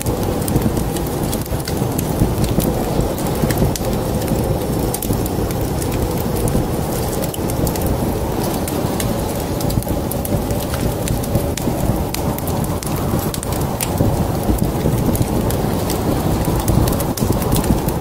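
Wood fire crackling in a fireplace: many sharp, irregular pops and crackles over a steady, low rushing noise.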